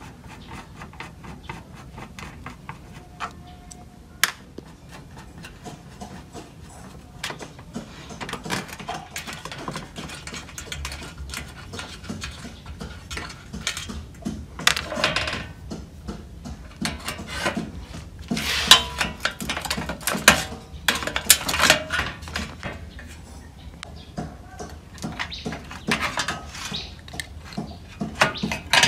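Hand tools and loose metal parts clinking, tapping and scraping on the sheet-steel chassis of an LCD monitor being taken apart with a screwdriver and pliers, with the loudest clatter in the middle.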